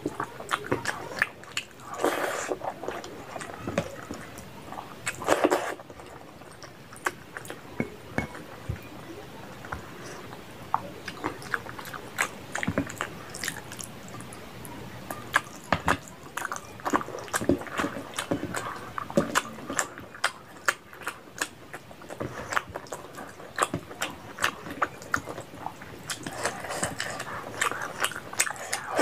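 Close-up wet chewing and mouth sounds of a person eating curry, meat and rice by hand, with many sharp lip-smacking clicks. There are a few louder, squelchier stretches as food goes into the mouth.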